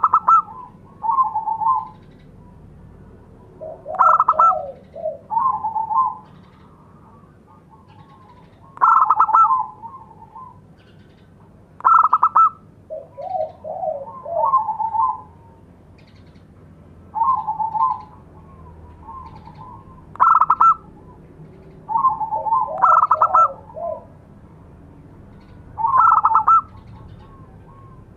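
Zebra dove (perkutut) calling: short phrases of rapid, staccato cooing notes, repeated every few seconds, some phrases dipping to lower notes.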